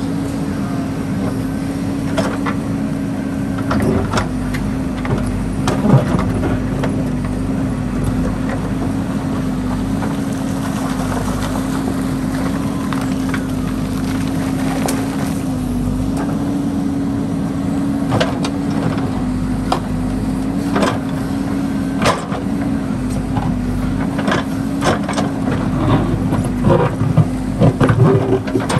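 JCB backhoe loader's diesel engine running steadily under hydraulic load, its pitch wavering slightly as the backhoe arm works. Over it come repeated knocks and scrapes of the steel bucket on river stones and gravel, busiest near the end.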